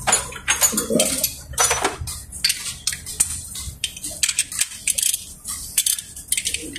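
Irregular metallic clinks and taps of hand tools and metal parts being handled during engine repair work.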